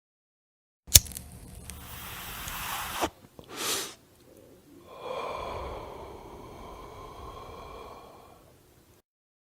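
A sharp click, then a long drawn breath in, a short puff, and a long breath out.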